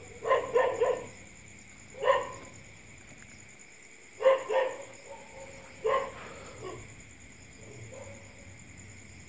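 Dog barking in short bouts: three quick barks, then single barks and a pair spaced a couple of seconds apart, fainter toward the end.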